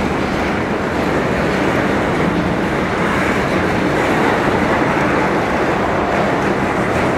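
Tank cars of a Canadian Pacific freight train rolling past: a steady, continuous noise of steel wheels on the rails.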